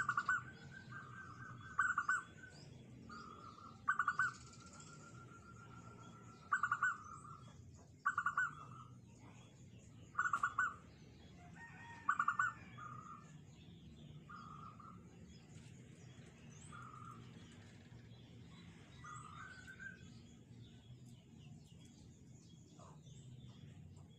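Zebra dove (perkutut) singing: short trilled cooing phrases repeated about every two seconds, loud through the first half, then a run of softer notes that stops about twenty seconds in.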